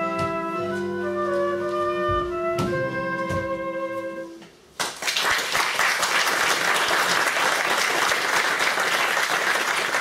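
Closing bars of an operetta number, held instrumental notes that end about four and a half seconds in. Audience applause then breaks out and continues.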